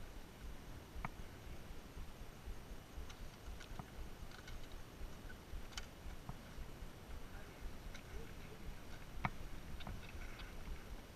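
Low wind rumble on the microphone with a few faint, sharp clicks scattered through it. The sharpest clicks come about six seconds in and about nine seconds in.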